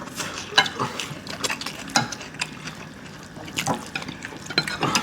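People eating ramen noodles: wet slurping and chewing, with irregular clicks of utensils against plates.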